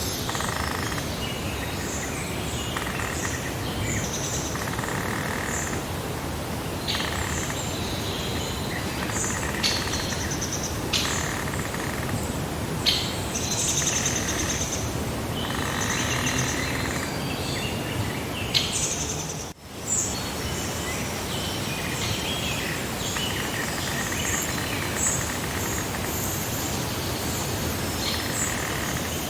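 Several songbirds chirping and singing in many short calls and trills over a steady background hiss of outdoor ambience. The whole sound drops out for a moment about two-thirds of the way through.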